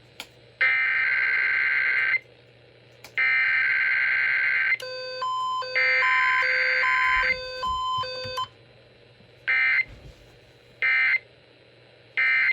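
Emergency Alert System SAME header: three buzzy digital data bursts, each about a second and a half long with a second's gap between them, then three short bursts near the end. A run of short electronic beeps at several pitches plays over the third long burst.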